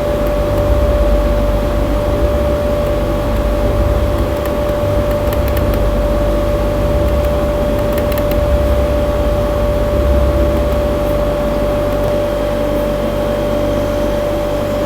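Steady mechanical hum: one constant tone over a low, uneven rumble, with no distinct events.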